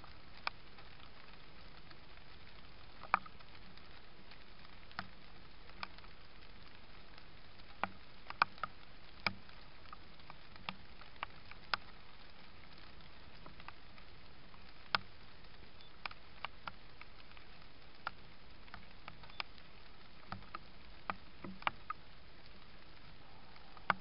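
Irregular small sharp ticks and patters, singly and in short clusters, over a steady faint hiss.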